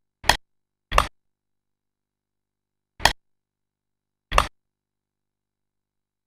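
Four sharp strikes landing on a large striking target. Two land close together near the start, then two more come a couple of seconds later, about a second and a half apart, with nothing heard in between.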